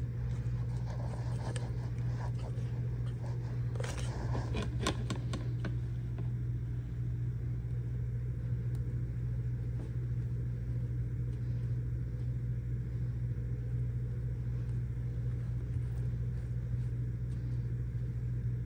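A steady low hum, with a few light clicks and scrapes about four to six seconds in as a spoon spreads sauce over Hawaiian rolls in a glass baking dish.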